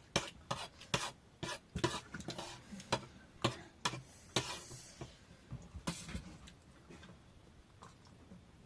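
A metal utensil stirring and scraping in a cooking pan, with sharp clinks about two a second that thin out after about six seconds.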